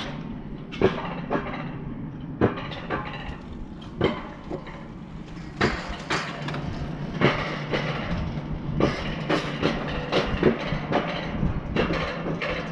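Alpine coaster sled rolling up its steel twin-tube track, with irregular metallic clacks and knocks about once or twice a second over a steady low hum.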